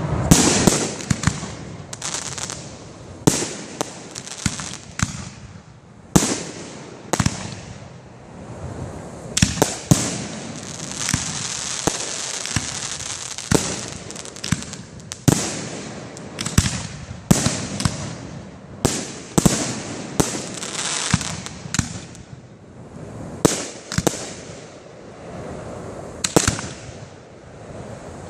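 Aerial firework shells bursting one after another, sharp bangs every second or so, with crackling glitter hissing between them.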